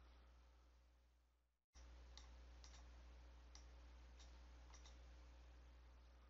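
Faint computer mouse clicks, about five spread over a few seconds, over a low steady electrical hum. The hum cuts out for a moment about a second and a half in.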